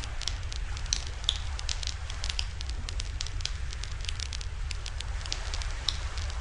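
Wood fire crackling, with frequent sharp irregular pops, over a steady low rumble.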